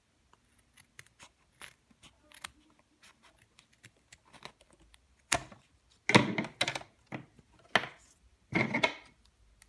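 Scissors trimming thread ends at the sewn edge of an elastic band: faint snips and clicks, then several louder sharp snips and fabric handling noises in the second half.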